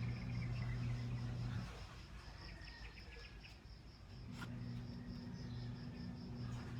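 Faint, evenly pulsing high chirping like insects, over a steady low electrical hum that drops out for a couple of seconds midway, with a few light clicks.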